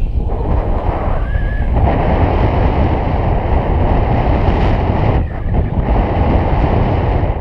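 Wind buffeting an action camera's microphone in paragliding flight: a loud, steady rushing noise, easing briefly about five seconds in.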